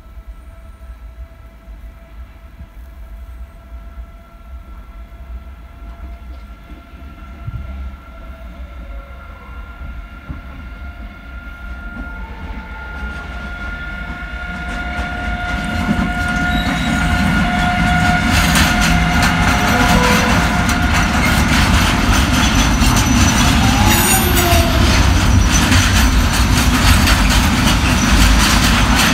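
An ÖBB electric locomotive hauling a container freight train approaches and passes, growing steadily louder over the first half with steady whining tones. From about two-thirds of the way in, the container wagons roll by loudly, with rapid clicking of wheels over the rail joints.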